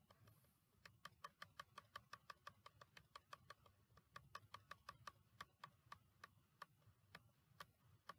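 A computer mouse button clicked rapidly and repeatedly, faint, about five clicks a second with a few short pauses, pressing an on-screen undo button over and over.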